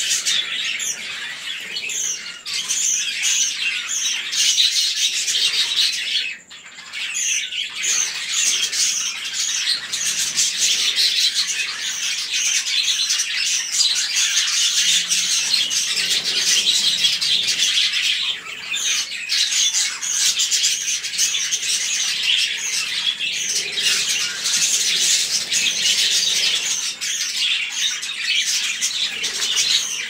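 A flock of budgerigars chattering: a dense, continuous stream of short, high chirps and squawks overlapping one another, with a brief lull about six seconds in.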